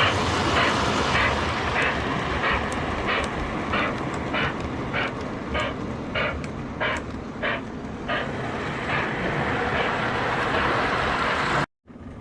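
O gauge model Hudson steam locomotive running, with a steady chuffing rhythm of about two chuffs a second over the rumble of wheels on the track. The sound cuts out abruptly for a moment near the end.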